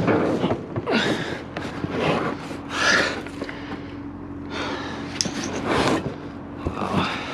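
A man breathing hard, with a noisy breath about once a second.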